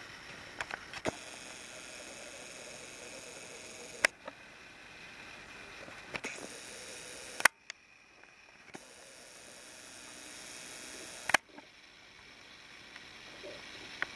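Faint steady hiss broken by sharp clicks: a few small ones in the first second, then louder single clicks about every three to four seconds, the hiss dropping away for about a second after the loudest one.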